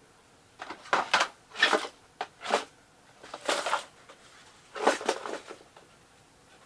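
About seven short rustling and scraping noises of things being handled, spaced unevenly, the last about five seconds in.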